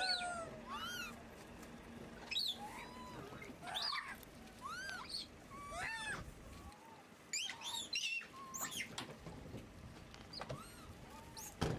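Macaques calling: short, high-pitched squeaky coos, each rising then falling in pitch, repeated every second or so.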